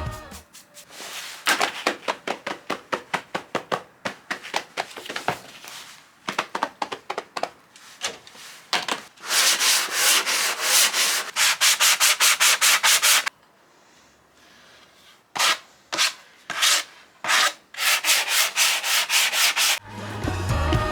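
Sandpaper scrubbed back and forth over the wood of a dresser in quick, even strokes, about three or four a second, with a brief pause about two-thirds of the way through.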